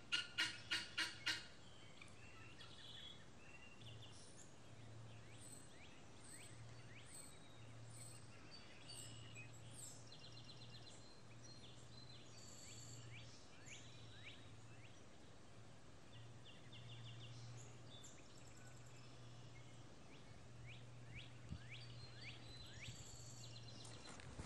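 Helmeted guineafowl giving a quick run of about six harsh calls in the first second or so. Small songbirds then chirp and twitter faintly, over a low hum that comes and goes.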